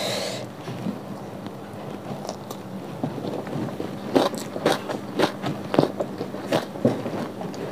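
Close-miked chewing of a mouthful of fried cassava rice (nasi goreng tiwul), a short mouth noise as the food goes in, then crunchy clicks about two a second from about halfway through.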